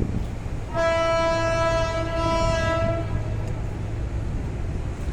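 Horn of the Shatabdi Express locomotive sounding one steady blast of about two seconds, starting about a second in, over a low rumble.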